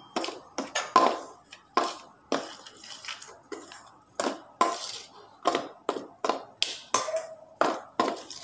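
Stainless steel spoon stirring a dry flour-and-spice mix in a stainless steel bowl, knocking and scraping against the metal about two or three times a second.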